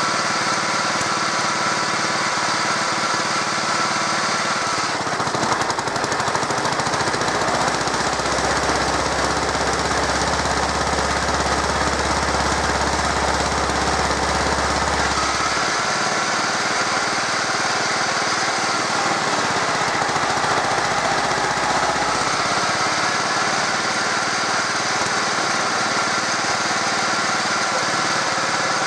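Stothert and Pitt W28 Mk 1 roller's engine and belt drive running steadily on a test stand. About five seconds in the sound changes, and a deep low drone joins it for about eight seconds before it returns to the plain running.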